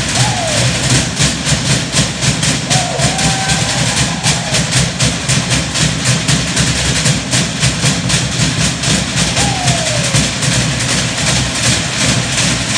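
Fast, steady drumming accompaniment for a fireknife dance, with three short falling calls over it: one at the start, one about three seconds in, one about nine seconds in.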